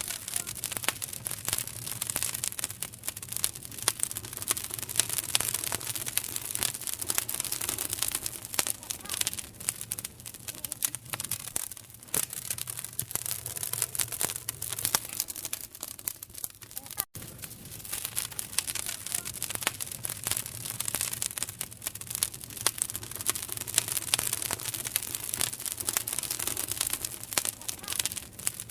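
A fire crackling: a steady hiss full of many small irregular pops and snaps, with a momentary break about two-thirds of the way through.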